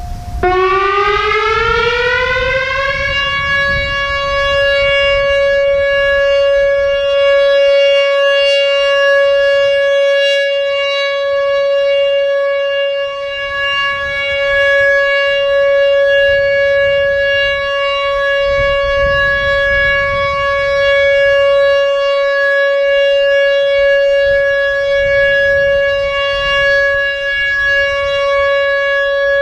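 WS2000R warning siren sounding: its pitch rises over the first three seconds, then holds one steady tone rich in overtones, with a low rumble underneath.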